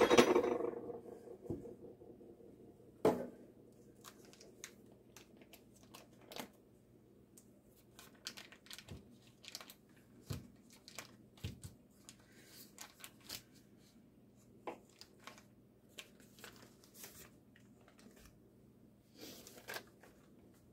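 Paper butter-stick wrappers being peeled and crinkled, with scattered light clicks and taps and one sharper knock about three seconds in.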